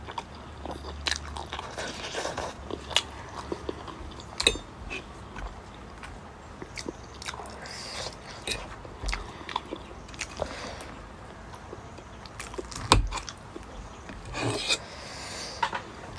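Close-up eating of pork momos: crunchy bites and chewing with many sharp clicks, the loudest click about thirteen seconds in.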